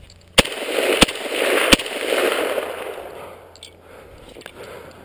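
Three semi-automatic rifle shots from a Bulgarian AK74 in 5.45×39 mm, fired about two-thirds of a second apart, followed by a long echo that dies away over a couple of seconds.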